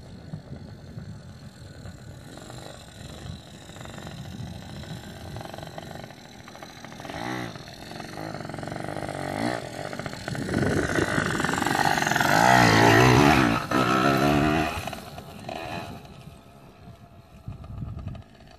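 Yamaha PW80 two-stroke mini dirt bike engine running and revving, its pitch rising and falling with the throttle. It grows louder past the middle as the bike comes close, then fades as it rides away.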